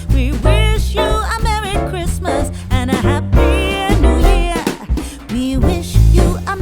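Upbeat background music with a steady bass line and a wavering lead melody.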